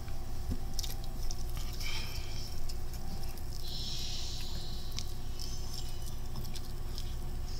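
Chewing fried chicken close to the microphone, with many small wet mouth clicks. A louder crunchy, crackling bite comes about four seconds in.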